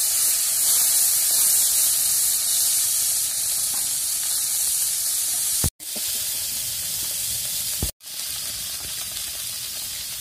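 Small puti and tangra fish sizzling as they fry in hot oil in a kadai, a steady hiss. It cuts out briefly twice, a little past halfway and again about two seconds later.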